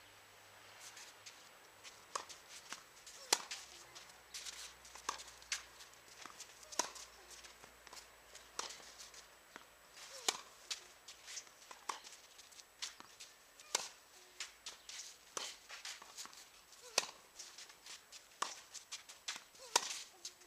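Tennis ball struck back and forth with rackets in a long rally, a sharp hit about every one and a half to two seconds, with softer bounces and footsteps between. The hitting starts about two seconds in.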